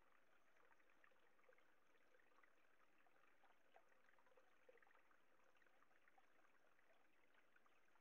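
Faint trickling water with small scattered drips, barely above near silence.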